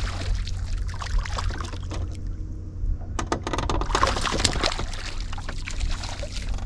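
Water splashing and sloshing beside a bass boat, thickest about halfway through, over a steady low rumble.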